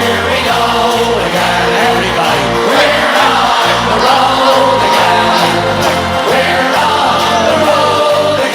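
Song with singing over a steady, regular beat.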